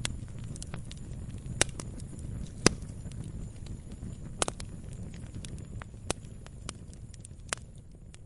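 Log fire crackling: irregular sharp pops and snaps over a low, steady rumble of burning flames, the loudest pop a little under three seconds in.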